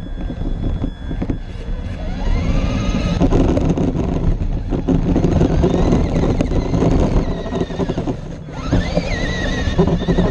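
Electric drive whine of a Traxxas LaTrax SST RC truck, picked up by a camera mounted on the truck, rising in pitch as it speeds up about two seconds in and again near the end. Under it are the rattle and crunch of the tyres on gravel and grass, and wind on the microphone.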